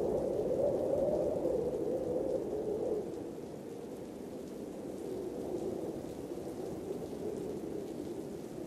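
Steady rain falling, a dull, muffled rush that drops somewhat in level about three seconds in.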